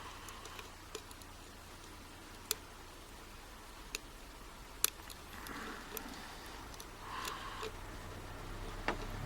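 Hook pick and tension wrench working in a pin-tumbler euro cylinder: a few scattered sharp metallic ticks and faint scraping as the pick probes the pins. No pin is binding yet.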